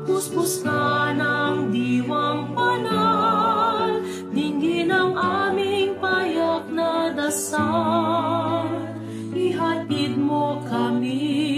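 Choir singing a Tagalog hymn in harmony, with a female soloist carrying the melody in a strong vibrato over the held chords.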